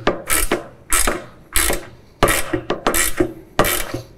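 Ratchet wrench tightening a nut down onto a bolt, clicking in short repeated strokes, about six of them.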